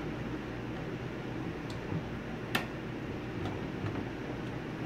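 A few short, sharp plastic clicks and taps as a SATA power connector is worked onto the back of a DVD drive inside a desktop computer case, over a steady low room hum. The loudest click comes about halfway through.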